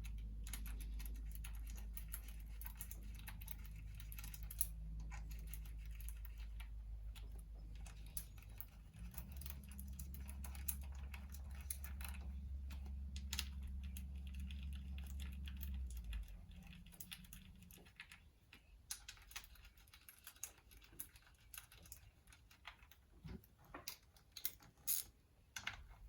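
Light metallic clicks and taps of hand tools and M6 bolts while the outer clutch cover of a Honda TRX450R engine is fitted and its bolts are run in. A steady low hum underneath stops about 16 seconds in.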